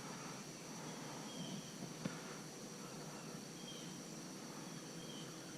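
Faint outdoor ambience with a steady high-pitched insect drone and a few short, faint chirps; a single sharp click about two seconds in.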